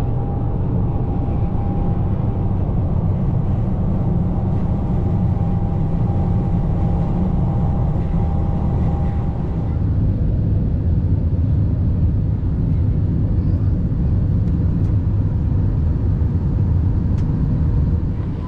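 Steady low rumble of vehicle cabin noise: a car at highway speed with a thin steady whine that stops about ten seconds in, then the rumble of a jet airliner's cabin.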